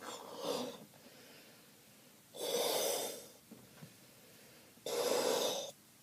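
Air let out of a balloon through its neck in three short sputtering bursts, a fart-like sound; the middle burst is the loudest.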